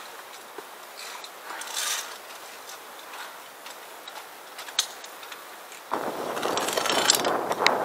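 Sparse faint clicks and rustles, then about six seconds in, louder wind buffeting on the microphone sets in suddenly. Over it come sharp metallic clicks of via ferrata carabiners on the steel safety cable.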